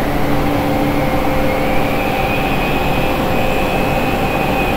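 Electric rotary polisher with a wool pad running steadily against a car's painted hood while compounding the paint with rubbing polish. A steady motor whine with several held tones, a higher one rising slightly in pitch partway through.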